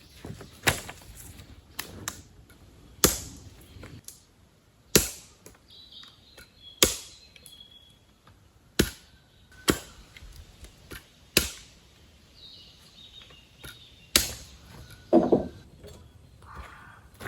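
Dry firewood being broken up: about a dozen sharp, short wooden cracks, one every second or two.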